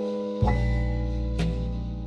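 Lofi background music: held electric-piano chords over a deep bass note that comes in about half a second in, with a soft drum hit near the end.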